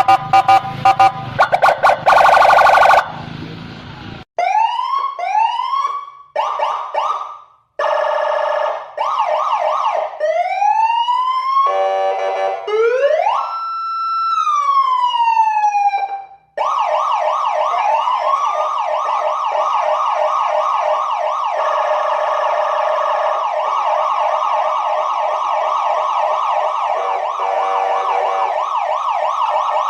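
Indonesian police escort (patwal) electronic siren switching through its tones: a harsh buzzing horn blast, short rising whoops, a fast warble, and one long wail rising and falling. It then settles into a rapid yelp from about halfway through.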